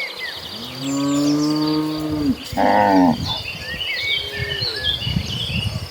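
Cattle mooing: one long low moo, then a shorter, higher moo just before the three-second mark and a fainter one about a second later. Birds chirp and insects buzz steadily in the background.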